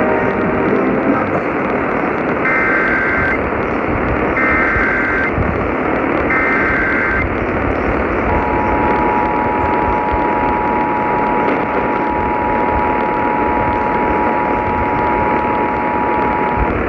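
Emergency Alert System signal received over a hissy, static-filled radio: three short bursts of warbling SAME data header about two seconds apart, then the two-tone attention signal held steady for about eight seconds. This sequence opens the Missouri Required Monthly Test.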